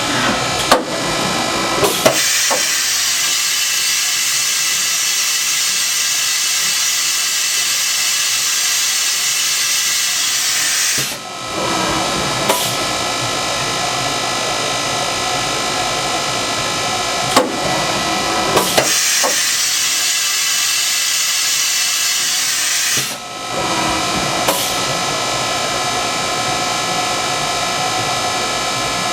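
A Fadal VMC 2016L CNC vertical machining centre running through tool changes. The tool changer and spindle give sharp mechanical clunks several times, and there are two long stretches of strong air hiss over the machine's steady hum.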